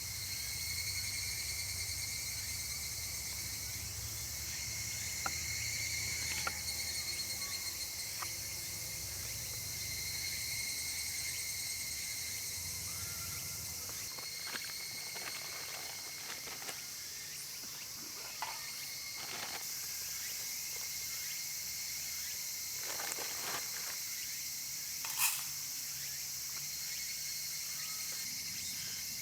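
Steady summer insect chorus, a continuous high shrilling. A low rumble sits under it through the first half, and scattered light clicks and knocks come through, one sharper knock near the end.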